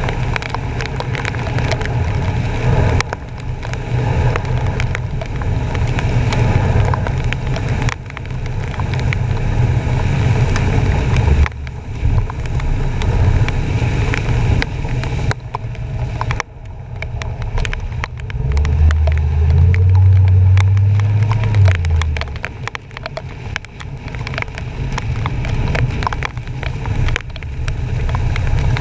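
A truck pushing through floodwater, heard from its front bumper: water churning and splashing, wind on the microphone and a low rumble. The rumble swells loudest about 19 to 22 seconds in.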